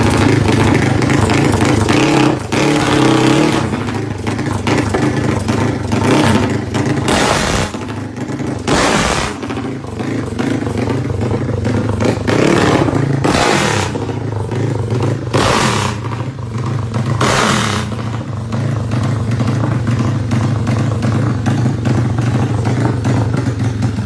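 Engine of a modified Yamaha Mio drag bike, said to be 500 cc, running loud and steady, with about five short, louder bursts in the middle stretch.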